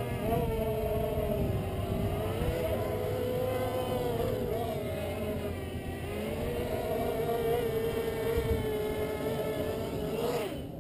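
Mini quadcopter's four DYS BE1806 2300kv brushless motors with 5x3 props buzzing in flight, the pitch wavering up and down as the throttle is worked. About ten and a half seconds in it lands and the motors cut off.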